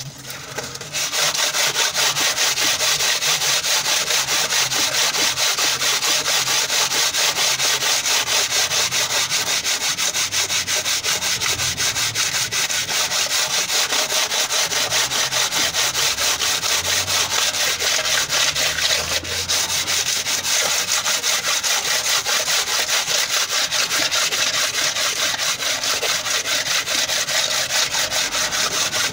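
Sandpaper rubbed by hand back and forth across a Morris Minor cylinder head's gasket face: a continuous dry scraping in fast, even strokes that starts about a second in. The head's mating surface is being cleaned up for a new head gasket.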